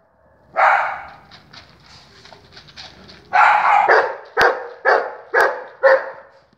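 A dog barking: one bark about half a second in, then a run of barks from about three seconds on, the last four about half a second apart. Two short sharp clicks fall between the final barks.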